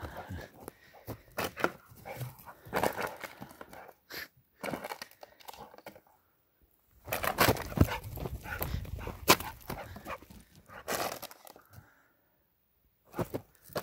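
A pit bull-type dog playing fetch with its toy: breathing, snuffling and scuffling on the ground in irregular bursts, with sharp knocks. Near the middle and near the end there are short gaps of silence.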